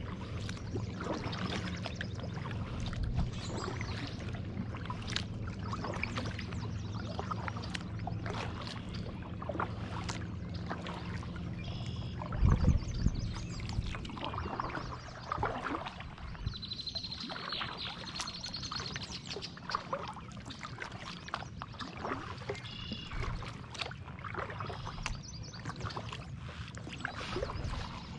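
Kayak paddle dipping and splashing in lake water stroke after stroke, with water dripping off the blade. A loud low thump about twelve seconds in, and a high thin tone lasting about two seconds a little past the middle.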